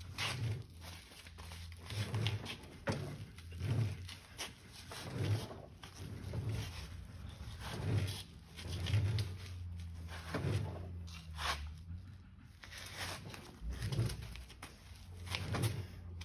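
Hand pipe cutter being swung back and forth around a rusty steel tube held in a vise, its cutting wheel scraping on the metal with each stroke, about one stroke a second.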